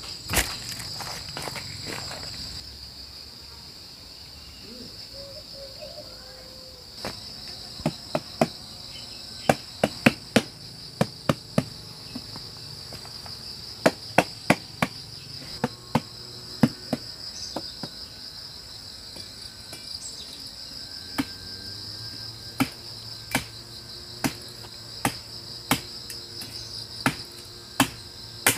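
Insects chirring in a steady high-pitched drone, with sharp irregular knocks and clicks coming in clusters from about a quarter of the way in, while jackfruit are picked from the tree.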